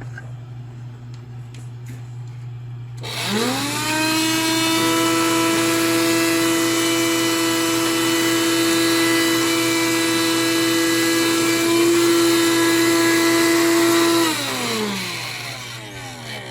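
A 12-volt car vacuum cleaner running off a computer power supply is switched on about three seconds in. Its motor whines up to speed, runs at a steady pitch for about eleven seconds, then is switched off and spins down with a falling whine near the end.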